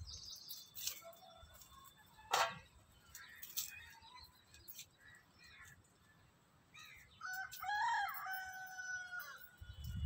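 A rooster crows once near the end: a few short notes rising into one long held note. Small birds chirp here and there earlier, and there is one sharp click about two seconds in.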